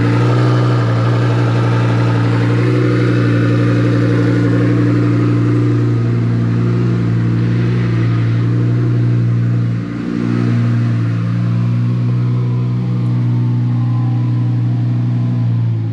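Lamborghini Huracán Performante's 5.2-litre V10 idling steadily, just jump-started from a flat battery, with a brief dip in its note about ten seconds in.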